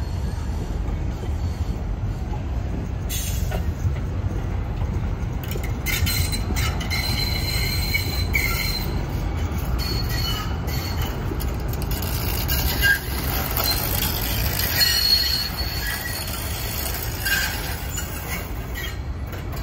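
Train wheels squealing against the rails over a steady low rumble of a train moving through the terminal tracks, the shrill squeals coming and going from about three seconds in.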